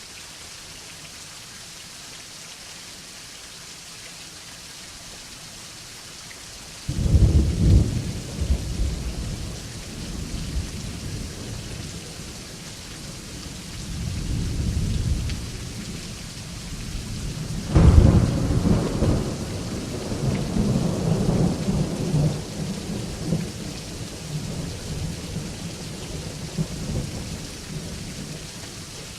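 Steady rain falling, heard by a window, with thunder: a sudden clap about a quarter of the way in rolls into a deep rumble, a smaller rumble follows, then a second, louder clap a little past halfway rumbles on to the end.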